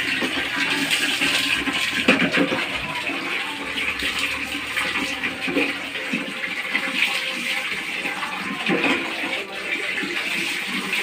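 Steady rush of running water in a small bathroom, with splashing as water is poured over a dog from a plastic dipper.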